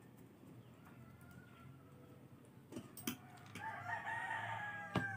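Rooster crowing, faint: a fainter crow early on and one long held crow starting about three and a half seconds in. A few faint sharp clicks in between.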